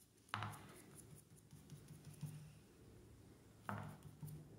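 Faint handling sounds of a paintbrush dabbing acrylic paint onto paper over a stencil, with two soft knocks, one shortly after the start and one near the end.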